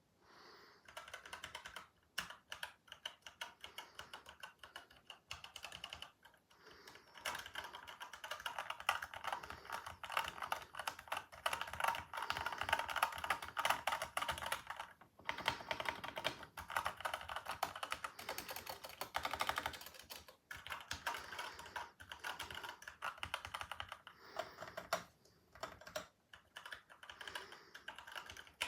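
Havit mechanical keyboard being typed on: fast, dense runs of keystrokes, broken by a few short pauses.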